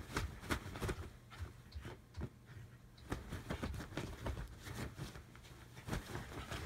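A mixed-breed dog digging at a futon quilt with its front paws: quick, irregular scratching and rustling of the fabric.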